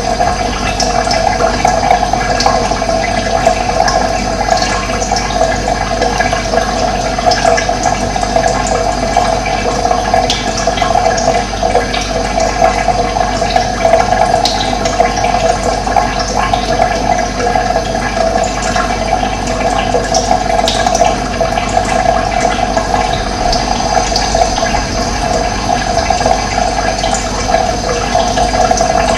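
Running water with a steady, even rushing and gurgling, and faint high bird chirps scattered over it.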